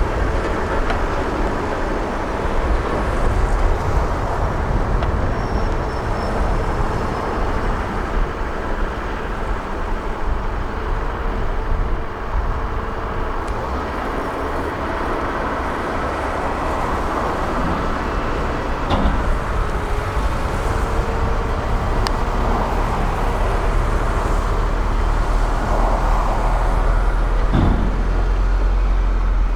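Excavators working: a steady, loud diesel engine rumble with a few short knocks in the second half.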